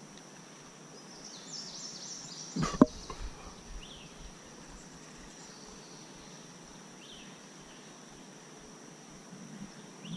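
A steady, high-pitched insect drone over quiet marsh ambience, with a few faint bird chirps. A single sharp knock about three seconds in is the loudest sound.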